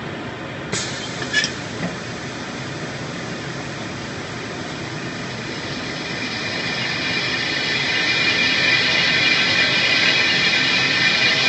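CNC plasma cutting and drilling machine running with a steady noise, with a few sharp clicks about a second in. From about six seconds a hiss grows louder and then holds.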